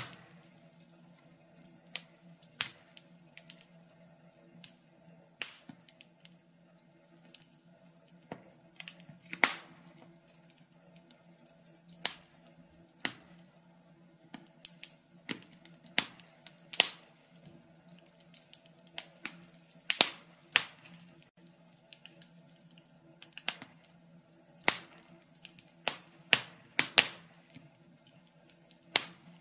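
Logs burning in a fireplace, crackling with irregular sharp pops and snaps over a faint steady low hum.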